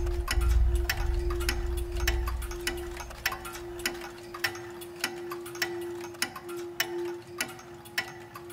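Clock ticking about twice a second over a single held note, with a deep rumble fading out in the first few seconds.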